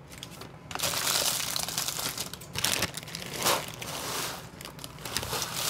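Parchment paper and a plastic bag crinkling and rustling, starting about a second in, as the rumpled parchment is pressed into a pie crust and dried beans are tipped in from the bag as pie weights.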